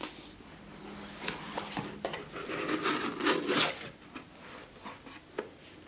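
A cardboard mailer box being opened by hand: the lid and flaps rub and scrape with small clicks, loudest about three seconds in.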